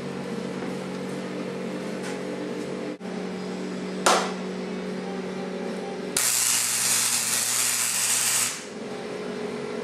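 Flux-core wire welder striking an arc: a short spurt about four seconds in, then a steady hiss of welding for about two seconds from about six seconds in, over a constant background hum.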